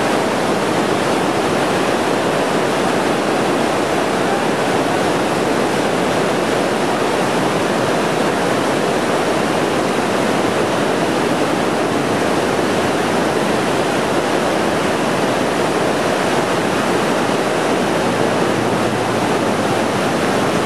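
Whitewater rapids rushing: a loud, steady wash of water noise that never lets up.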